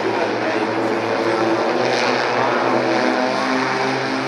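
Pivotal electric VTOL aircraft flying overhead: the steady many-toned drone of its eight electric-motor propellers, with the pitch bending a little about halfway through.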